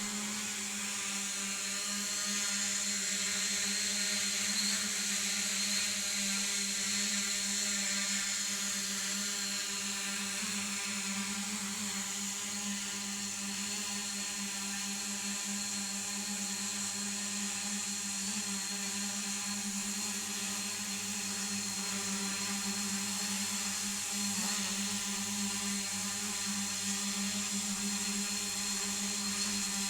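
DIY multirotor drone's electric motors and propellers buzzing steadily in flight, a low hum with a high whine over it, the pitch shifting slightly now and then.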